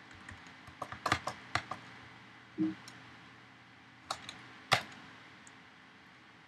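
Computer keyboard keystrokes: a quick run of clicks about a second in, then two sharper strokes a little past the four-second mark, the second the loudest. A short low hum sounds near the middle.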